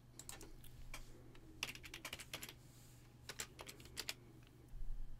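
Computer keyboard keys being typed in short runs of quick, light keystrokes as a web search is entered. A brief low bump comes near the end.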